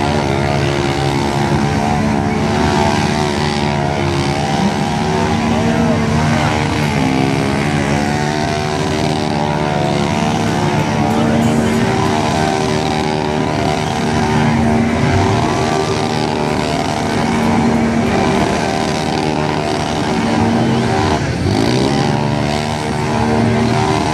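Quad ATV engine running hard and revving up and down as the quad spins doughnuts in mud.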